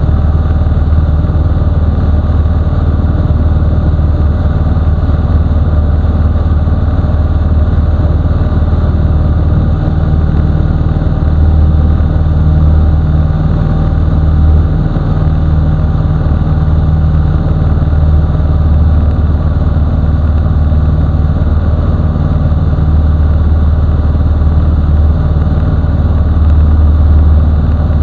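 Mustang II light aircraft's piston engine and propeller running steadily at cruise power in flight, a constant low drone heard inside the cockpit.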